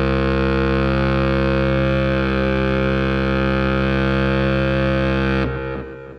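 Cartoon sound effect: a loud, steady low tone with many overtones, held without change, which breaks up about five and a half seconds in and fades away.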